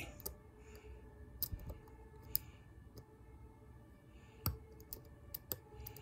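Dimple pick working the pins inside a Burg Wächter Boccia 450 brass dimple padlock under tension: faint, sharp metallic clicks at an irregular pace as pins are probed and set, the loudest about four and a half seconds in.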